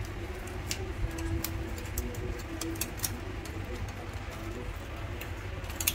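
Metal needles of a pork-skin pricking tool stabbing repeatedly into the crisp crackling of roast pork belly: a dozen or so irregular sharp crackly clicks.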